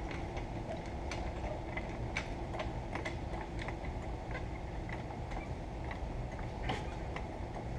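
Light clicks and taps of hand tools on metal parts, scattered and irregular, the sharpest about three-quarters of the way through, over a steady low hum.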